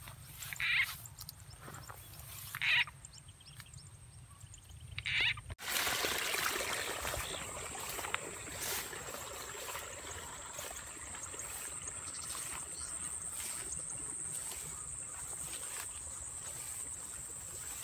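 Short frog calls repeating about every two seconds over a faint high steady tone. About five and a half seconds in, the sound cuts abruptly to a broad hiss and a steady high-pitched insect drone.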